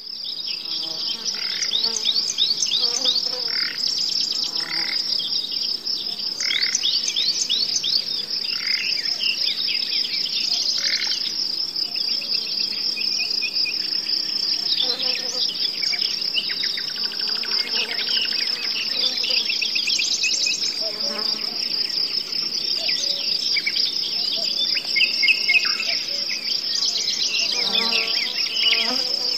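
A continuous high-pitched insect trill, with many birds chirping and calling over it in quick falling notes.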